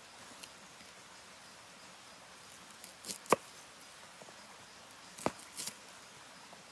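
A knife slicing a shallot by hand, with a few sharp clicks of the blade: a loud one about three seconds in and two more a couple of seconds later, over a faint steady hiss.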